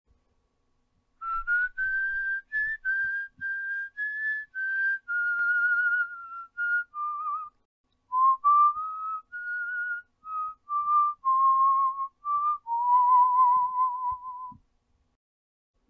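A person whistling a short tune in two phrases with a brief pause between them, ending on a long held note with a slight waver.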